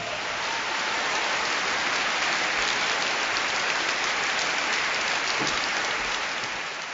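Audience applauding in a large hall, a steady dense clatter of many hands clapping that fades out near the end.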